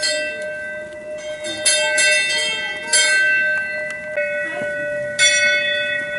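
Hanging metal temple bells struck about five times, each strike ringing on so the tones overlap and sustain.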